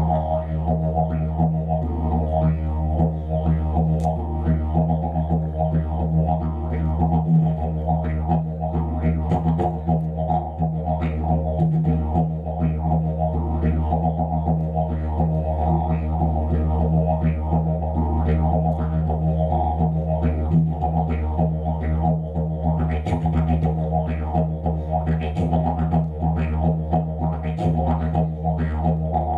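Didgeridoo played live: a steady low drone with quick rhythmic accents riding above it.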